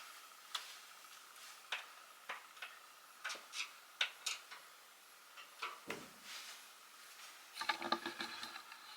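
Scattered light knocks and clicks of hard items being handled and set down in a closet, with a brief rattling clatter near the end.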